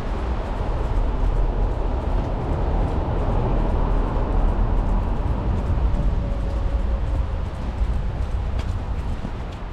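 City street traffic, a steady rumble of passing vehicles that swells in the middle and eases off near the end.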